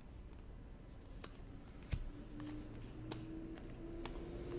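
Trading cards being handled, with scattered faint clicks and ticks as cards are flipped and slid.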